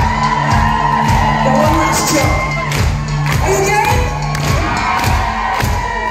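Live pop-rock band playing with a steady drum beat, bass, guitars and keyboard, and voices singing, heard from within the audience, with the crowd cheering and singing along. A held bass note drops out about two-thirds of the way through.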